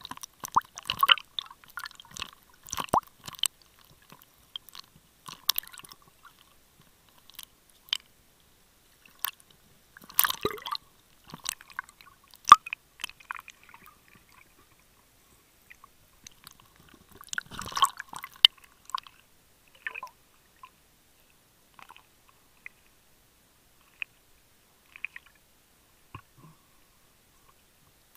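Scattered clicks and short crackling bursts picked up by a camera underwater, irregular and separated by quiet, with the biggest clusters about ten seconds in and again near eighteen seconds.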